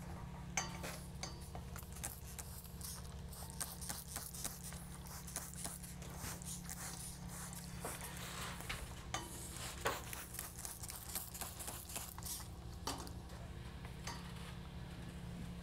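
Light clicks, rustles and a few brief hisses at irregular moments as a long strip of plastic drywall L-trim is handled and wetted from a water bottle to activate its adhesive, over a steady low hum.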